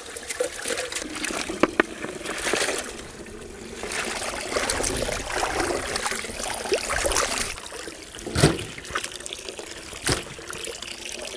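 Tap water running into a large aluminium pot while hands slosh and rinse raw chicken pieces in it, with constant splashing and trickling. Two sharper thuds come near the end.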